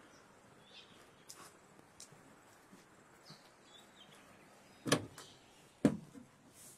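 Footsteps: a few faint scuffs on the ground, then two sharp knocks about a second apart near the end as feet land on the caravan's electric entry step.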